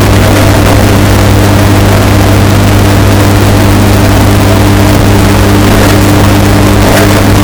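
Washing machine running with a steady motor hum, artificially bass-boosted and distorted to clipping. A few faint ticks show near the end.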